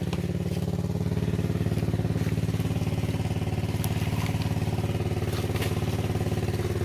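Small engine running steadily at an even speed, with a few faint clicks and knocks over it.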